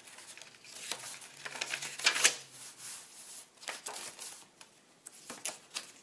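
Paper pages and tucked cards of a handmade journal rustling as they are turned and handled by hand, in several separate rustles, the loudest about two seconds in.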